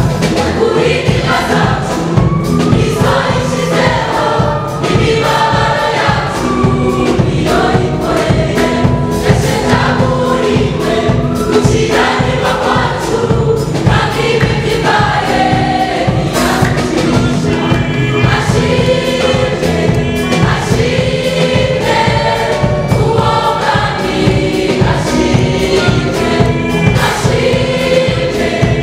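Mixed church choir of men and women singing a gospel song together, over amplified accompaniment with a steady beat.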